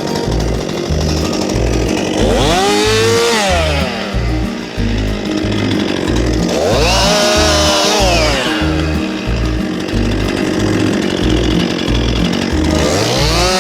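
Chainsaw cutting maple branches, revving up three times, each rev rising in pitch and falling back, over background music with a steady beat.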